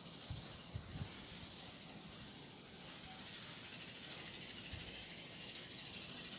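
Baking soda fizzing as lime juice is squeezed onto it in a small bowl: a faint, steady hiss of bubbling, with a few soft low knocks in the first second.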